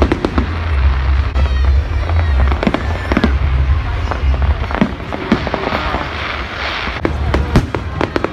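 Fireworks going off in a rapid series of sharp bangs and crackles, over loud music with a heavy bass beat.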